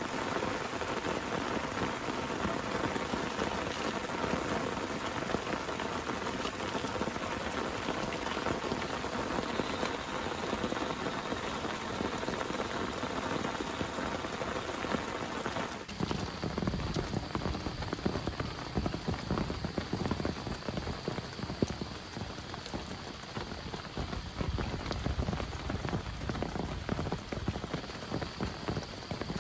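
Heavy rain falling, a steady dense hiss of drops. About halfway through it changes abruptly to a deeper, more crackling patter of individual drops.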